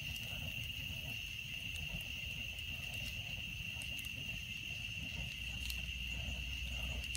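Steady, high-pitched chorus of night insects over the low rumble and a few faint crackles of a burning bonfire.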